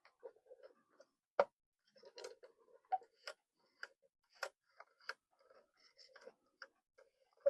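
Irregular small clicks and taps from a cuckoo clock movement and its wire lifting rods as they are handled and adjusted.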